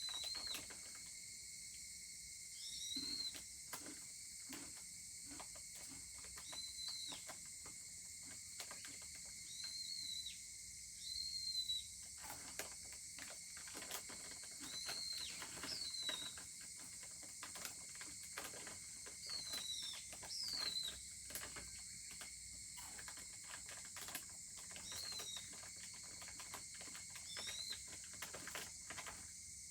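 Wood fire crackling and popping with irregular sharp snaps. Under it runs a steady high insect drone, and short chirping calls come every couple of seconds.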